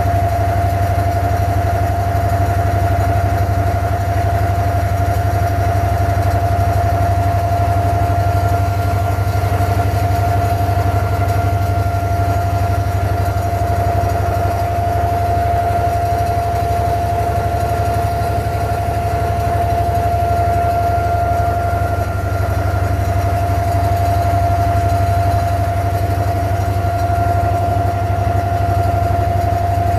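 Inboard engine of a wooden abra water taxi running steadily while the boat is under way. It makes a low, even drone with a constant higher-pitched whine above it.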